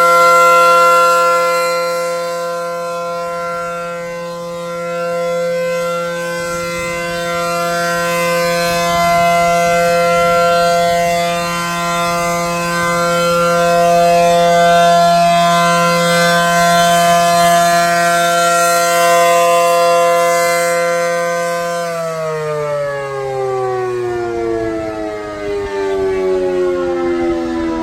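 ACA Allertor 125 rotating outdoor warning siren sounding a steady alert tone, swelling and fading in loudness. About 22 seconds in the pitch starts falling steadily as the siren winds down at the end of its one-minute alert signal.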